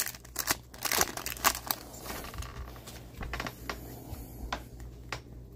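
Upper Deck hockey trading cards handled in the hands: a crinkle of the foil pack wrapper, then the cards slid and flicked through one at a time as soft clicks and rustles. The handling is busiest in the first two seconds and thins to scattered ticks after that.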